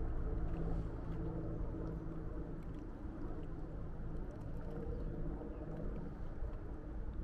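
A motor's steady hum that fades away over the first few seconds, over a constant wash of outdoor noise with a few faint light ticks.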